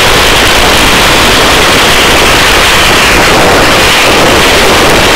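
Helicopter noise heard from inside the cabin with the door open during a hovering hoist rescue: a loud, steady wash of rotor and engine noise with a hiss like static over it.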